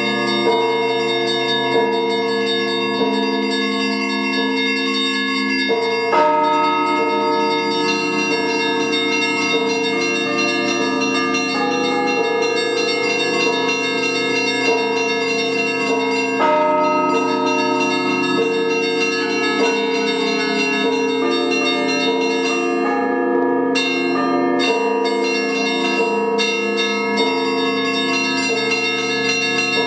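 Russian Orthodox church bells rung by hand in a continuous peal: many bells sounding together, small bells struck in quick rhythm over longer-ringing lower bells. Heavier strokes come about six seconds in and again about sixteen seconds in.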